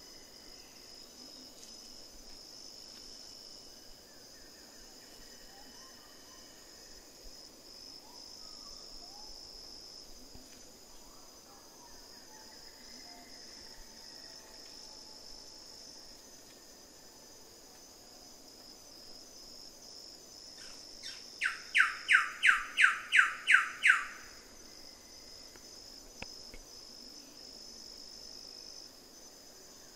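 Wilson's bird-of-paradise calling: a loud, rapid series of about eight sharp notes over roughly three seconds, about two-thirds of the way through. Underneath runs a steady high drone of insects, with faint scattered bird notes.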